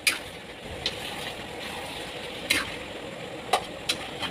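A metal spoon stirring vegetables in a metal pan, clinking and scraping against the pan about five times, over a steady cooking hiss.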